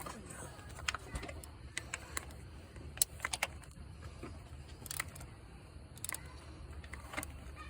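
Scattered light clicks and small rattles of hands handling parts and tools, over a low steady hum.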